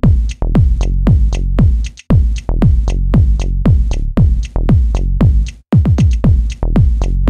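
Electronic dance music with a steady kick drum at about two beats a second, the beat dropping out briefly twice.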